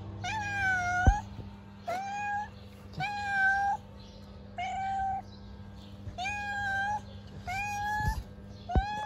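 Tabby street cat meowing over and over, about one short meow a second, each rising at the start and then held level. A hungry stray calling to a person for food.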